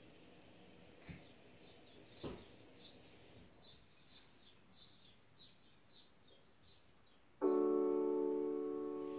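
Cartoon soundtrack played through a TV speaker. Two faint knocks come first, then a string of short, high bird chirps, about two or three a second. About seven seconds in, a loud piano chord starts, rings on and slowly fades.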